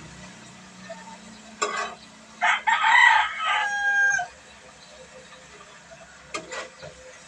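A rooster crows once, starting about two and a half seconds in and ending in a long held note. Shorter sounds come about a second before it and again near the end.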